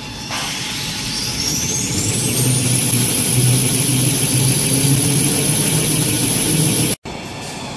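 Tissue paper production line machinery starting up. A motor whine rises steadily in pitch over a couple of seconds, then holds a high steady note over a low pulsing hum, until the sound cuts off abruptly near the end.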